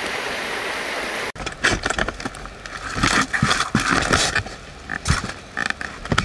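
Steady rushing noise of water or rain that cuts off suddenly about a second in. Then comes a string of irregular clicks, knocks and rustles as fishing gear is handled beside the angler's chair.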